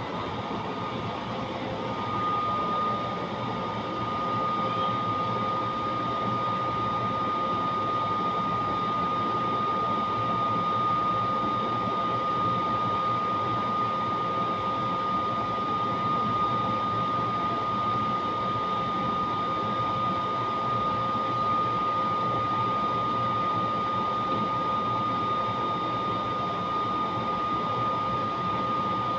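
Electric train standing at the platform with its ventilation and power equipment running: a steady hum and hiss, joined about two seconds in by a constant high whine.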